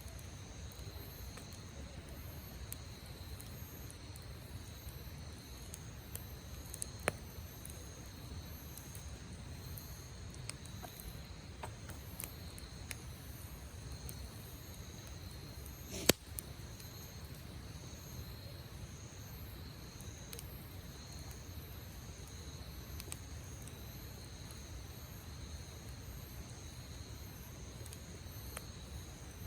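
Campfire burning with a steady low rush and scattered faint crackles, and two sharp pops, about 7 seconds in and the louder one past the middle. Under it, insects chirp steadily in high, pulsing tones.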